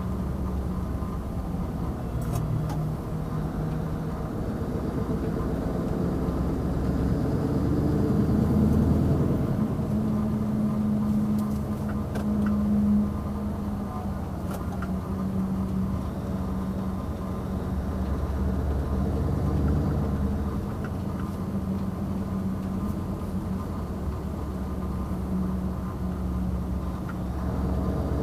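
Scania 770S truck's 16-litre V8 diesel on its stock exhaust, running with a steady low rumble; its pitch rises over a few seconds about a third of the way in, then holds steady.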